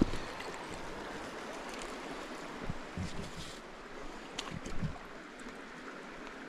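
A small stream's running water, a steady rush, with a few soft low thumps about three and five seconds in.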